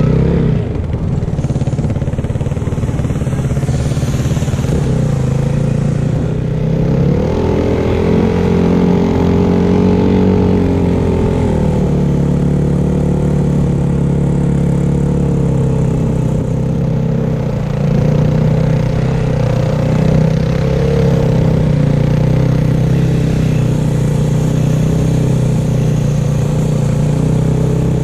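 Yamaha WR450F snowbike's single-cylinder four-stroke engine running under load, its pitch rising about a quarter of the way in, falling back a few seconds later, then rising and easing repeatedly as the throttle changes.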